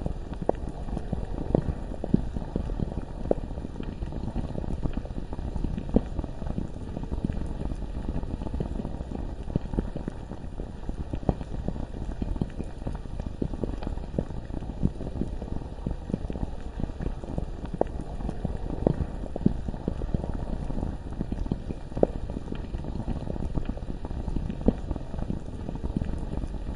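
Bubbling lava ambience: a low, continuous bubbling full of small pops, with an occasional louder pop every few seconds.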